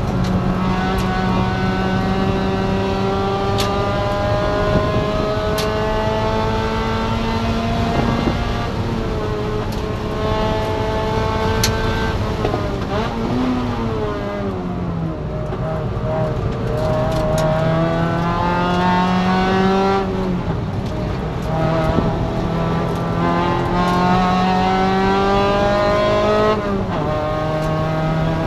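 Spec MX-5 (NC Miata) race car's four-cylinder engine under load, its pitch climbing as it accelerates. About halfway through the revs fall away as it slows for a corner, then climb again, dropping sharply at upshifts a little after two-thirds through and near the end.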